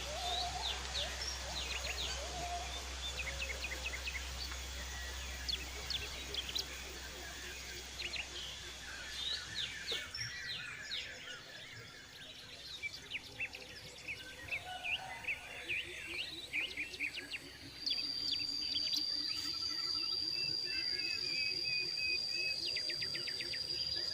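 Several birds calling and chirping over background noise. A steady high whine joins about three quarters of the way through.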